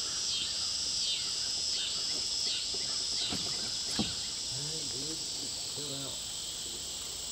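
Chorus of summer insects buzzing steadily, swelling and dipping about every 0.7 seconds, with a single short knock about four seconds in.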